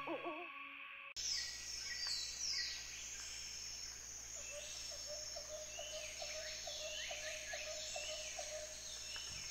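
The end of a cartoon owl's hoot in the first half second, then a quiet animated-park ambience: many birds chirping over a low steady hum. From about four seconds in, a short chirp repeats about three times a second.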